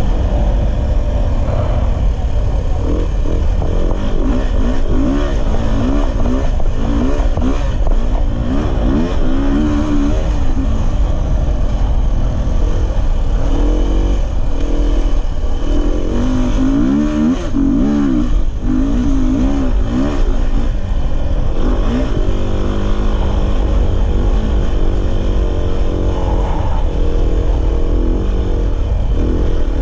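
Dirt bike engine running under way, its pitch rising and falling again and again as the throttle opens and closes and it shifts gears. A constant low rumble of wind on the microphone runs beneath it.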